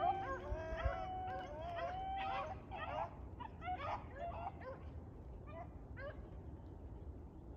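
A pack of beagles baying on a rabbit's trail, several voices overlapping and faint. Long drawn-out bawls come first, then shorter chop barks that thin out and fade near the end.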